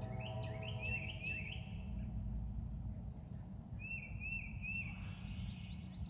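Outdoor ambience: birds calling, including a repeated arched whistle in runs of two or three, over a steady high insect drone and a low rumble. A faint hum fades away in the first second or two.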